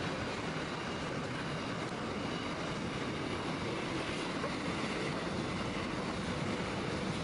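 Container freight train's wagons rolling past at a distance, a steady noise of steel wheels on rail.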